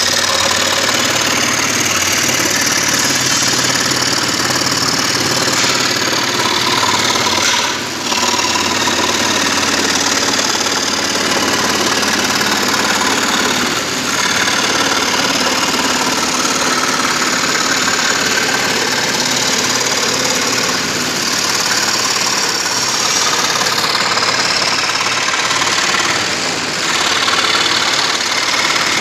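Wood-turning lathe running steadily, a low motor hum under a loud, continuous hissing scrape of a tool cutting the spinning wood, with a brief dip about a quarter of the way in.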